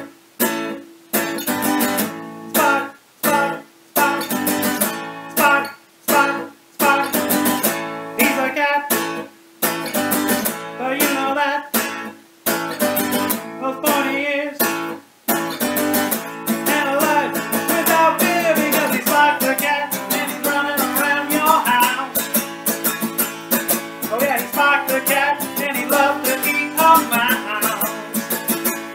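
Acoustic guitar being strummed. It starts in short phrases broken by brief pauses, then plays on without a break from about halfway through, when a man's voice comes in over it.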